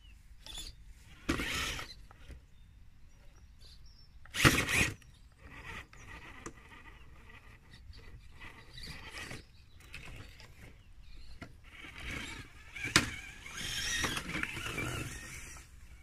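Traxxas TRX4 Sport RC crawler driving, its electric motor and gearbox whining faintly and steadily, with uneven knocks and scraping as it moves over rough ground. The loudest knock comes about four and a half seconds in, a sharp click about thirteen seconds in, and a longer noisy stretch near the end.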